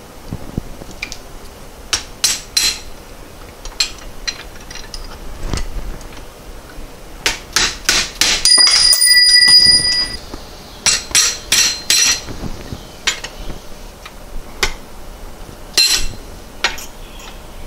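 Hammer striking a punch and screwdriver, metal on metal, knocking a part down onto a VW 020 transmission shaft's splines. The blows come in irregular clusters. About halfway there is a quick run of loud strikes with a ringing metallic tone.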